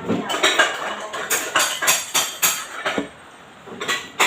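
Spoon knocking and scraping against a bowl while stirring a thick glue mixture: a quick run of clicks, a short pause about three seconds in, then more clicks.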